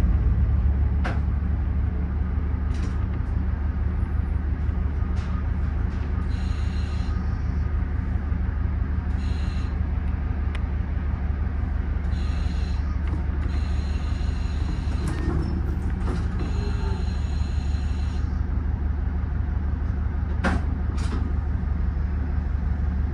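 KiHa 40 diesel railcar's engine running steadily, heard from inside the driver's cab as the car moves into the depot. There are scattered clicks and several short spells of higher hiss in the middle.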